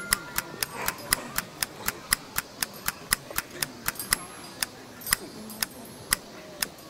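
Steady, even ticking, about four ticks a second, carrying on from the percussion of a background music track.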